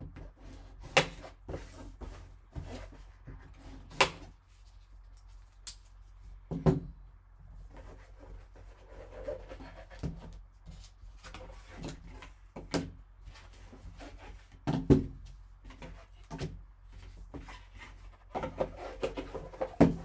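Handling noise of opening a sealed cardboard card box: a folding knife cutting the seal, the lid coming off and a card in a hard plastic holder lifted from the foam insert, heard as scattered sharp clicks, taps and light scrapes.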